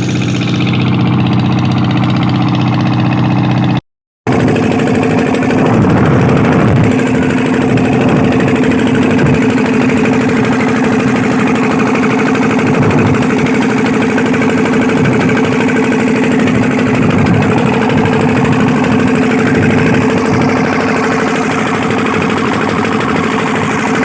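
An engine running steadily at a constant speed, broken by a sudden short silence about four seconds in, after which it continues at a slightly different pitch.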